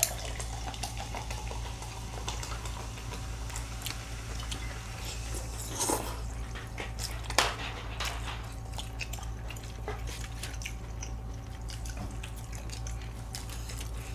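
Close-miked eating sounds: chewing, with chopsticks clicking and scraping against plastic takeout containers, and two louder clacks about six and seven seconds in. A steady low hum runs underneath.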